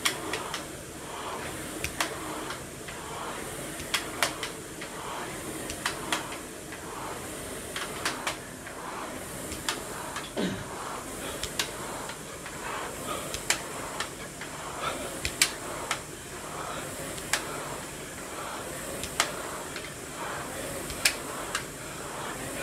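Air-resistance rowing machine being rowed hard at about one stroke every two seconds. Each stroke brings a sharp click and a swell of flywheel fan noise over a steady whir.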